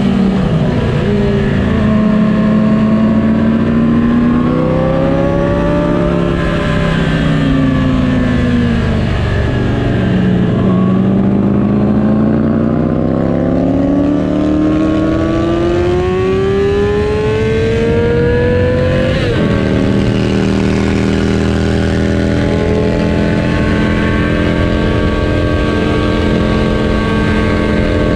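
2007 Yamaha R6's 600 cc inline-four engine at track pace, its pitch rising and falling as it is revved through the gears and backed off for corners. A long climb through the revs ends in a quick gear change, after which it holds a steady high pitch.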